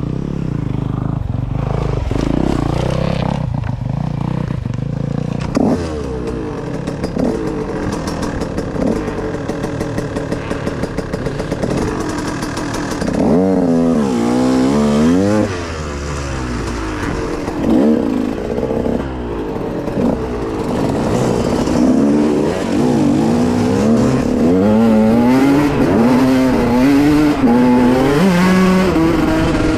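Dirt bike engines running and revving, the pitch swinging up and down again and again; the revving is strongest about halfway through and over the last several seconds.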